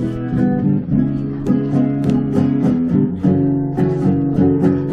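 Acoustic guitar strumming chords in a steady rhythm, the instrumental introduction to a hymn.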